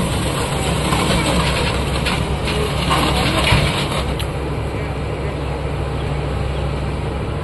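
Tracked excavator's diesel engine running steadily as the machine crawls along a low-bed trailer, with several clanks from its steel tracks in the first few seconds.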